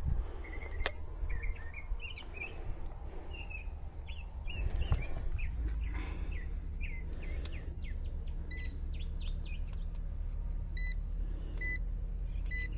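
Small birds chirping repeatedly over a steady low hum, which grows louder about four seconds in.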